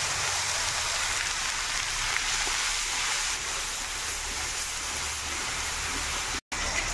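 Onion, ginger and garlic paste sizzling steadily in hot mustard oil in an aluminium kadhai as it is stirred with a spatula, the first frying of a curry masala. The sound cuts out for an instant near the end.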